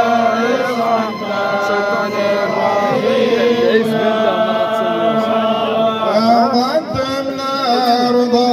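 Male voice chanting through a microphone and loudspeakers, in long held, ornamented notes sung in phrases.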